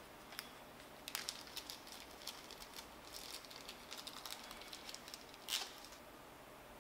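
Small M4x16 screws and printer parts being handled by hand: a run of light clicks and rattles, with one louder click about five and a half seconds in.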